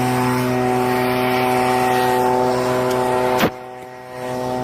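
An engine running at a steady speed, a steady pitched drone. A sharp click about three and a half seconds in, after which the drone is briefly quieter before returning.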